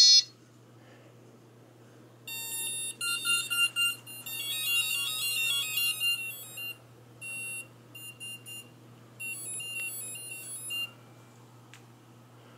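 Runs of short electronic beep notes at shifting pitches, several overlapping, from the multirotor's electronic speed controllers sounding through the motors after full throttle is applied for throttle calibration. They stop a little before the end.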